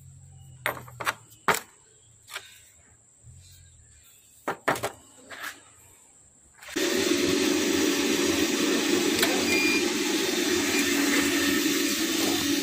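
A few sharp clicks and knocks, then, about two-thirds of the way through, an induction hardening machine switches on abruptly and runs with a steady loud hum and hiss.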